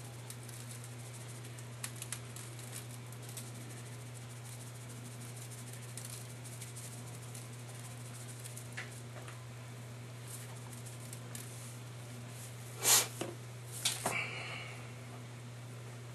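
Dry rub shaken from a plastic spice shaker onto raw chicken thighs in a foil pan: faint scattered rattling and patter over a steady low hum, with two louder knocks near the end.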